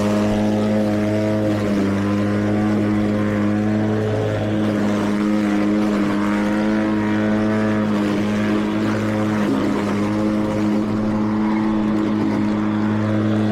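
Mowrator 2WD battery-powered remote-control lawn mower running with its blade spinning: a steady hum of unchanging pitch.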